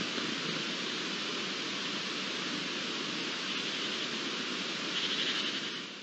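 Steady outdoor ambient hiss, with no distinct calls or knocks, a little louder about five seconds in and fading out at the end.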